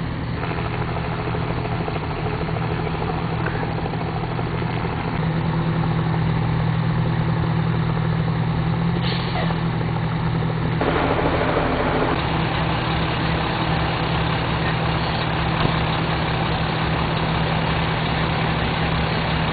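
Large truck engine idling steadily, with a low even hum, under a haze of outdoor traffic noise; a louder rush of noise joins about eleven seconds in.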